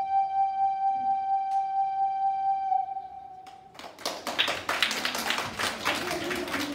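A flute holds one long steady note that fades out about three seconds in. About a second later, applause starts up.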